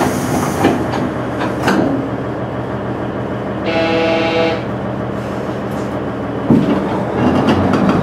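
Onboard running sound of a KiHa 110 series diesel railcar: steady diesel engine and rolling noise with a few sharp knocks from the wheels and car. Near the middle a horn sounds once for about a second.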